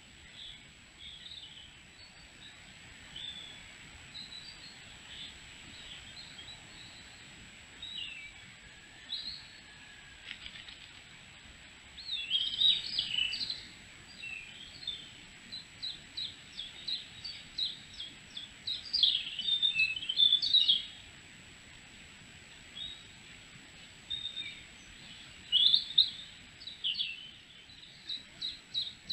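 Wild songbirds singing and calling in woodland: scattered chirps and short phrases, with a denser stretch of song and rapid runs of quick notes in the middle and again near the end.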